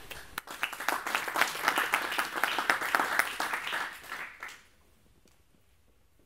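Audience applauding: many hands clapping together, dying away about four and a half seconds in.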